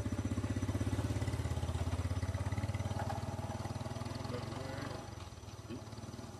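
An engine running with a fast, even pulse, louder at first and then dropping in level about five seconds in.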